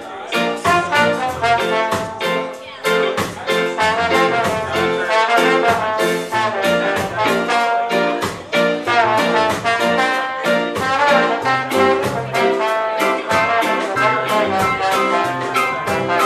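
Live ska band playing an instrumental passage: trombone and another brass horn carry the melody over drums and bass guitar, with a steady beat.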